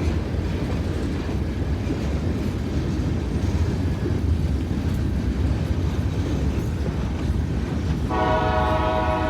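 Train rolling past with a steady low rumble from its wheels on the rails. About eight seconds in, the locomotive's horn starts sounding several tones at once and holds.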